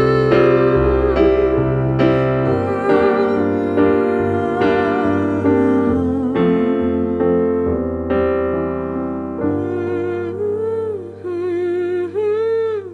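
Instrumental stretch of a band's song with no singing, led by keyboard chords over a deep bass, with a wavering melody line on top. About two thirds of the way through the bass drops out and the arrangement thins.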